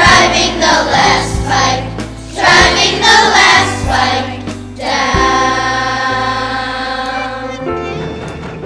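A group of children singing a song together over backing music, finishing on a long held note that fades away over the last few seconds.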